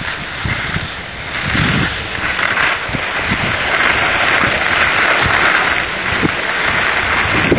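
Wind rushing over the microphone of a camera carried while skiing downhill, with skis scraping on the packed snow of the piste. It grows louder over the first few seconds.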